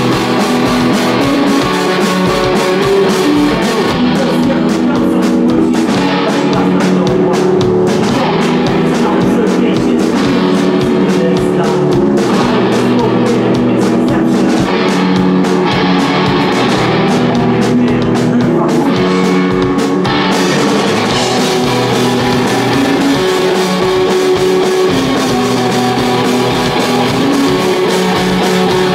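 Live rock band playing: electric guitar chords over a drum kit, loud and continuous.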